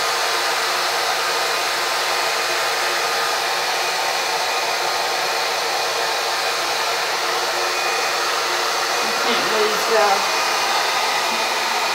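Handheld hair dryer running steadily, blowing air over a dampened t-shirt to smooth out its wrinkles.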